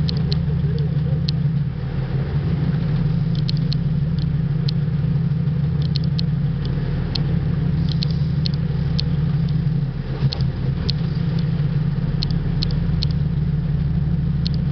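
Sportfishing boat's engine running steadily at low speed, a low drone, with short sharp clicks every second or so.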